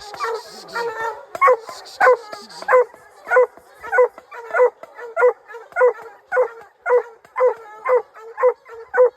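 Bear-hunting hounds barking, one hound giving a steady, rhythmic run of barks about one and a half a second, with other dogs barking irregularly in the first few seconds: hounds working a bear.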